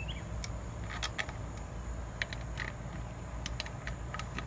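Scattered, irregular light metallic clicks and taps of a hand tool working the screws on an electric motor's terminal cover, over a steady low rumble.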